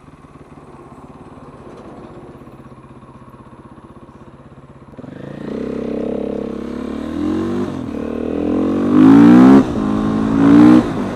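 Supermoto motorcycle's single-cylinder engine idling quietly, then about five seconds in pulling away and accelerating through the gears, its pitch rising with each gear. Near the end, wind buffets the microphone in two loud gusts.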